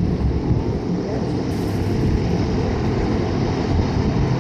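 Zeppelin NT airship's propeller engines running steadily, a loud, even drone.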